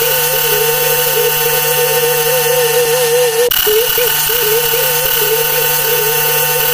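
Carl Wheezer's voice clip saying "croissant", digitally repeated and stacked so many times that the word blurs into a loud, buzzing drone with a wavering pitch. It breaks off and starts over about three and a half seconds in.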